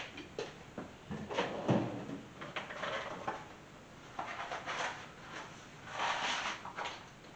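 Workshop handling sounds: scattered clicks, knocks and scraping rustles of tools and parts being picked up and moved, with one louder knock and scrape near two seconds in.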